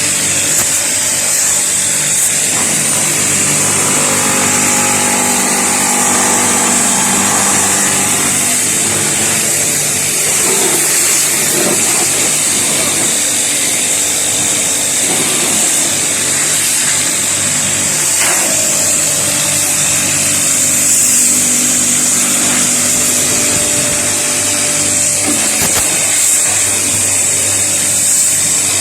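Electric pressure washer running steadily, its motor humming under the hiss of the water jet as it sprays and washes a split air-conditioner unit.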